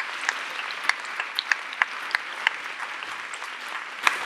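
Audience applauding: many hands clapping at once, with single sharp claps standing out.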